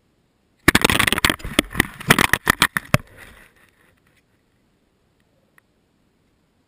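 Wild tom turkey attacking a fan decoy right at the camera: a sudden burst of wing beats, thrashing and blows on the decoy lasting about three seconds.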